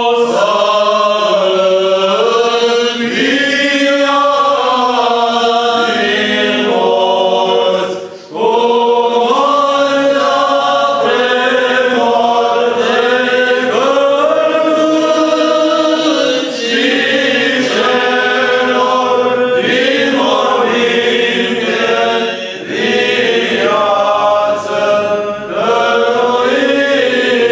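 Orthodox memorial service (parastas) being chanted by priests: slow sung phrases with long held notes, moving step by step in pitch, and a brief pause for breath between phrases.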